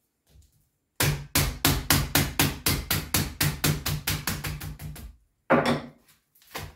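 Small hammer tapping rapidly on a screw to drive it down through a stack of sandpaper sheets clamped in a metal bench vise, about five ringing strikes a second that slowly fade. Near the end comes a single louder knock as the hammer is set down on the workbench.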